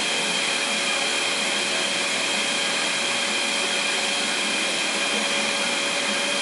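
A 5-axis CNC machine running: a steady machine noise with a constant high whine that holds without change.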